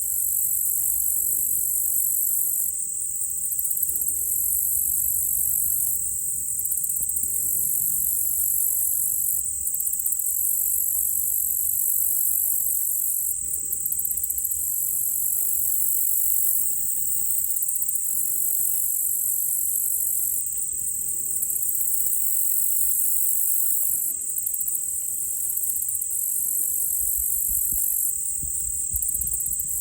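A steady, high-pitched, pulsing chorus of insects. A few faint distant shots are heard now and then, which fit gunfire from a nearby shooting range.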